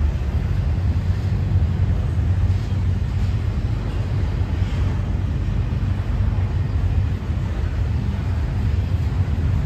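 Double-stack intermodal freight train rolling past at a steady speed: a continuous low rumble of its loaded well cars' steel wheels on the rails.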